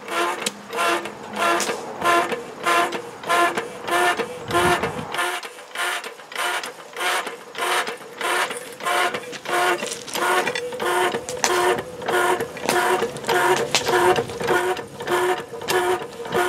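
Stanley hydraulic rail weld tool running, giving a rhythmic mechanical pulsing with the same pitched whine at about two pulses a second over a steady hum.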